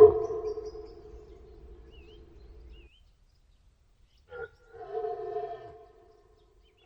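Rutting deer stag roaring: the fading end of one long, drawn-out roar breaks off about three seconds in. After a short pause and a brief click, a second, shorter roar of about a second comes near the end.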